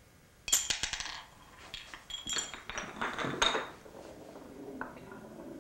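A poker chip tumbling down a run built of wooden blocks, a quick series of clicks and clatters on the wood starting about half a second in, with quieter rattling after about three and a half seconds.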